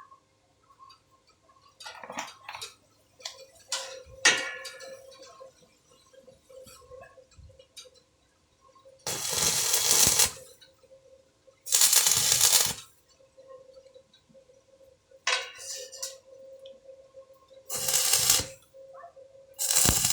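Arc welding in four short bursts of about a second each, with a few metal clinks and knocks before the first, over a faint steady hum.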